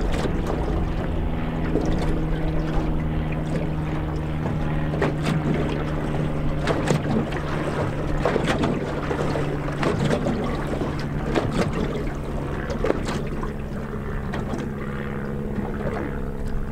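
Small boat rocking on the wake of a passing trawler, water slapping and knocking against the hull, over a steady low engine hum.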